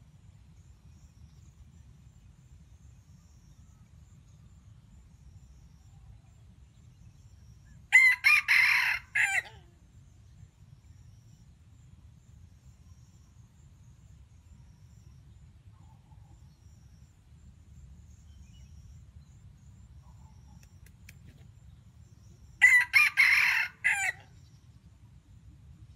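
Red junglefowl rooster crowing twice, about fourteen seconds apart. Each crow is short and broken into a few parts.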